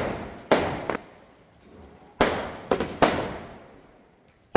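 Sky shot aerial fireworks bursting overhead: a string of sharp bangs at uneven intervals, each trailing off in a long echoing decay.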